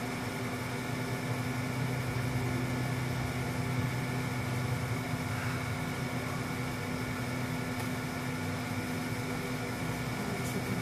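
A steady machine hum with a hiss over it, like a fan or household appliance running, with two faint ticks in the second half.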